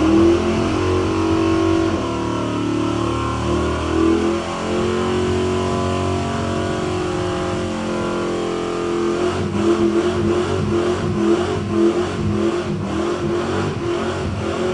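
A car engine revving, its pitch sliding up and down. From about halfway, the sound settles into a regular pulsing of a little over two beats a second.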